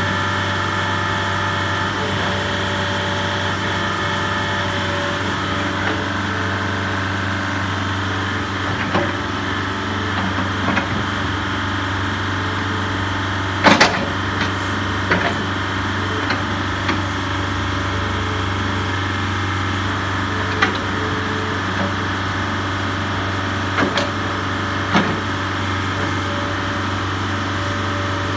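IHI 45J mini excavator's diesel engine running steadily while the boom and bucket are being worked, with a few sharp knocks, the loudest about halfway through.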